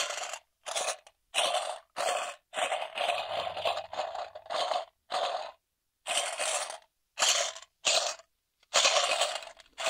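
A recorded can sample played through a binaural 3D audio engine: about a dozen short bursts of noise, each under a second, with brief silences between them. Its virtual position moves around the listener as the phone is turned.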